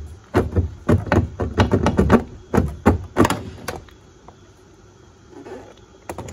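Stock Toyota Tundra side mirror being rocked and forced off the door, stuck after years in place: a quick run of plastic knocks and rattles that stops about four seconds in, with a couple of clicks near the end.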